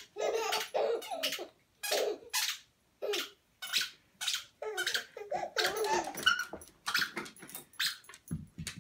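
Babies laughing in repeated short bursts, mixed with the squeaking of a dog's squeaky ball toy.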